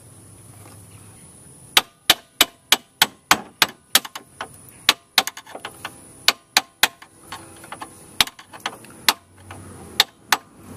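A run of sharp knocks and clicks, irregularly spaced at roughly two to three a second, from hardware being fitted at the golf cart's rear leaf-spring and axle mount.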